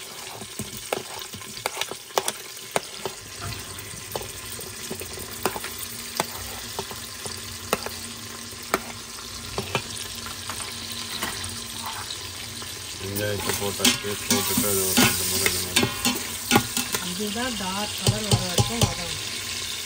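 Onions sizzling in hot oil in an Instant Pot's stainless steel inner pot on sauté mode, with a spoon clicking and scraping against the pot as they are stirred. The stirring gets busier and louder about two-thirds of the way in.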